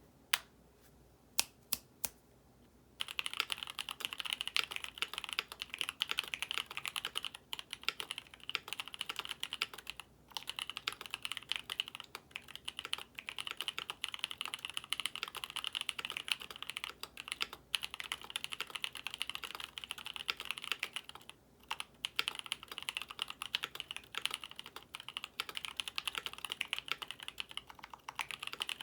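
Typing on a KBD67 Lite R3 65% mechanical keyboard with lubed C³Equalz x TKC Kiwi tactile switches, GMK Kaiju keycaps and a polycarbonate plate. A few separate keystrokes come first, then steady fast typing from about three seconds in, with two short pauses.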